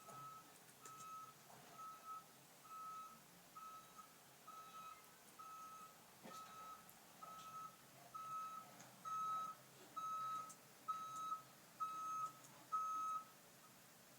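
A bus's reversing alarm beeping: a single high beep repeated evenly, about three beeps every two seconds, growing louder in the second half and stopping shortly before the end.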